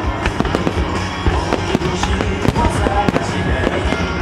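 Aerial firework shells bursting in rapid, overlapping succession with crackling, over music from loudspeakers.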